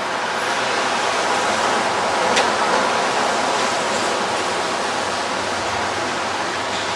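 Steady street traffic noise with tyres on the road, swelling a little as a car passes near the middle, with one brief sharp click a little after two seconds.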